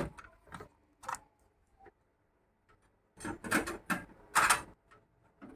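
Scattered light clicks, then a cluster of louder clatter and rustling about three seconds in, as parts are handled and taken off a desktop PC during disassembly.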